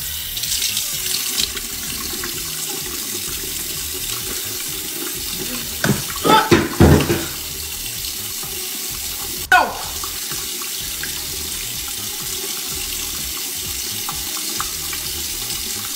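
Bathroom sink tap running steadily while water is splashed on the face to wash off makeup. A few short vocal sounds cut in about six to seven seconds in, and one brief falling sound near ten seconds in.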